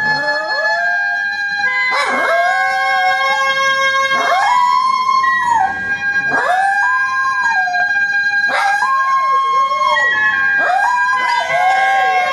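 Poodle howling along to music: long howls about every two seconds, each rising quickly, held, then dropping off, over steady held notes of the music.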